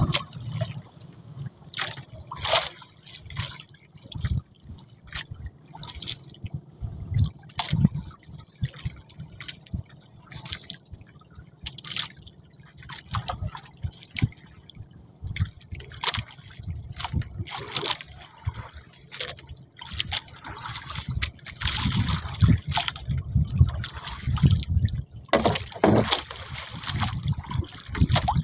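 Sea water sloshing and dripping, with many small irregular splashes.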